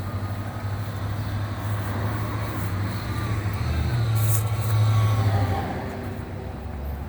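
A motor vehicle's engine running close by on the street, a steady low hum that gets louder about four to five seconds in and then eases off.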